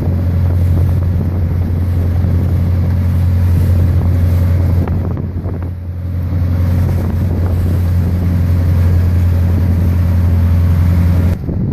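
The engine of a small fishing ferry boat running steadily under way, a deep, constant drone, with wind buffeting the microphone. The drone cuts off abruptly near the end.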